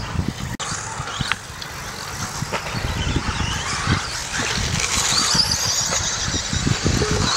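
Radio-controlled race cars running on a dirt track, their motors whining and rising in pitch as they accelerate past, over a steady hiss.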